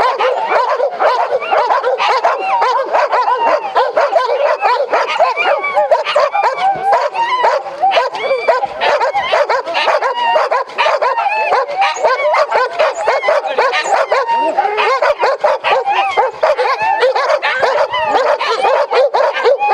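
Many dogs barking at once, a dense overlapping din that goes on without a break.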